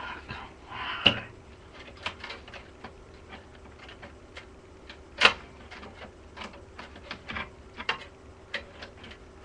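Irregular clicks and knocks of hard plastic and metal parts being handled inside a desktop computer case while a video card is fitted back in, with two sharper knocks about one and five seconds in.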